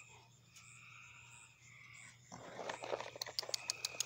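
Evening chorus of frogs and insects, a steady chirping drone with a regular high pulsing call. About two seconds in, a close rustling starts, and a quick run of sharp clicks near the end is the loudest sound.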